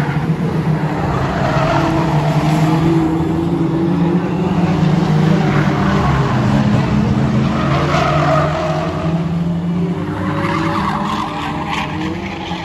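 A pack of Junior Production race cars lapping a short oval: several small engines run together in a steady drone, rising and falling as the cars pass, with tyre squeal swelling through the corners. It eases off slightly near the end.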